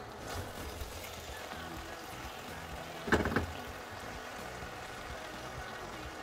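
Wooden spatula stirring and turning vegetables and potatoes in a nonstick pan, with a brief burst of scraping knocks against the pan about three seconds in.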